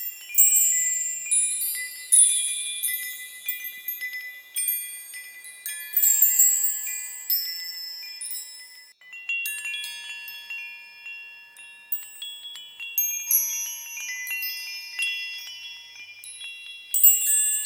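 High-pitched bells chiming, many ringing tones struck at irregular moments and overlapping as they fade, with louder clusters of strikes about half a second, two seconds and six seconds in.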